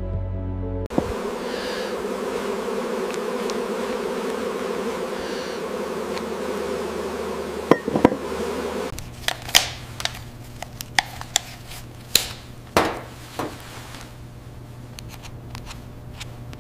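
Honeybees buzzing steadily for about eight seconds. The buzzing then stops and gives way to a low steady hum with a string of sharp clicks and taps.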